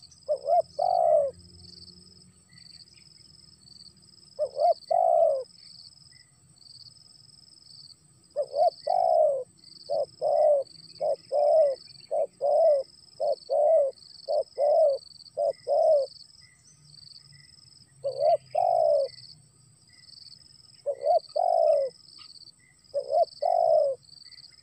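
Spotted dove (tekukur) cooing in repeated short phrases, with a dense run of coos through the middle. Insects pulse steadily in the background.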